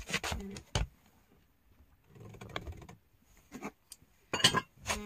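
Scattered soft knocks and shuffles of footsteps and camera handling, with a brief rustle about two seconds in.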